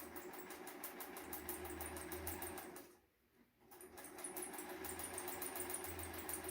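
Electric sewing machine stitching through paper, its needle going up and down in a quick, steady rhythm over a low motor hum. It stops for about a second a little after three seconds in, then runs again.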